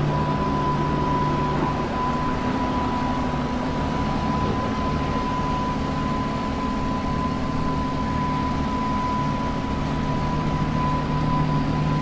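Lamborghini Huracán LP610-4's 5.2-litre V10 idling steadily as the car creeps forward at walking pace. A steady high-pitched whine runs alongside it.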